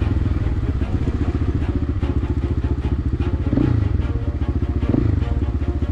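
Motorcycle engine running at low, steady speed, with a quick throttle blip about three and a half seconds in and another about five seconds in.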